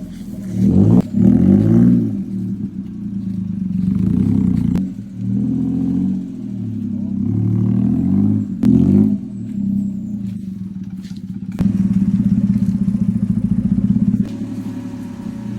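A motor engine running, its speed rising and falling again and again, then holding steadier and louder for a few seconds near the end.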